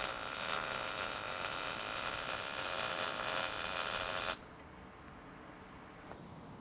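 MIG welding arc laying a bead on thin sheet steel, a steady sizzle that cuts off abruptly about four seconds in when the weld stops; faint room hum follows.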